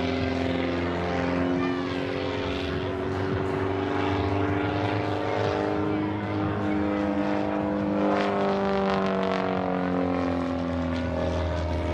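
A Christen Eagle aerobatic biplane's 200 hp Lycoming IO-360 four-cylinder engine and propeller running overhead in flight, a steady drone whose pitch shifts slowly up and down as the plane maneuvers.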